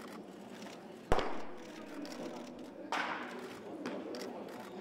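A single loud pop about a second in, a pitched baseball smacking into a catcher's mitt, with a softer knock a couple of seconds later.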